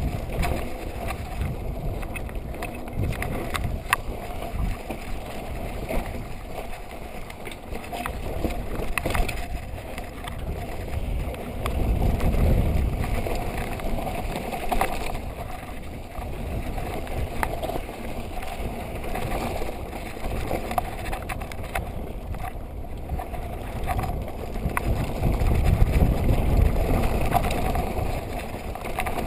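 Mountain bike riding fast down a dirt forest trail: a steady rush of tyre rumble and wind, with frequent small knocks and rattles from the bike over the rough ground. The rumble swells louder twice, about twelve seconds in and again near the end.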